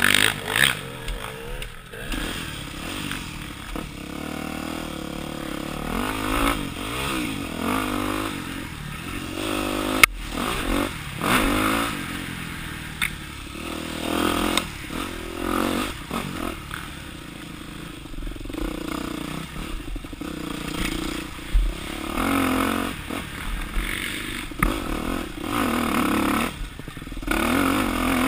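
Yamaha dirt bike engine running on a woods trail, the revs rising and falling again and again with the throttle, with a sharp knock about ten seconds in.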